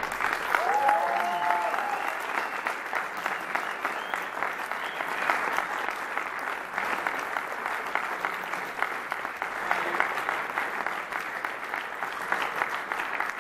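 Audience applauding steadily at the end of a live jazz quartet piece, the dense crackle of many hands clapping.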